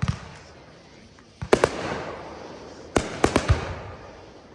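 Aerial fireworks bursting overhead. There is a bang at the very start and two sharp bangs about a second and a half in, then a quick run of four bangs around three seconds in, each trailing off slowly.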